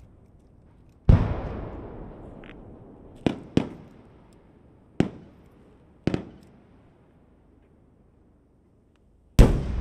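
Aerial firework shells, large 12-inch shakudama, bursting overhead. A deep boom about a second in rolls on in a long rumbling tail. Then come a quick pair of sharper bangs, two more single bangs, a short lull, and another heavy boom near the end.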